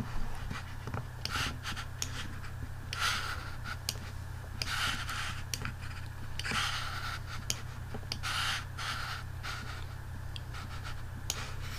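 Soft breathing close to a desk microphone, coming as hissy swells every couple of seconds, with scattered computer-mouse clicks and a steady low hum underneath.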